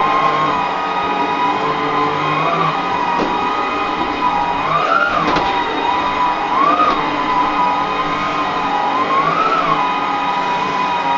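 Westinghouse Unplugged cordless bagless vacuum running with a steady motor whine, which rises in pitch briefly about four times as the airflow changes.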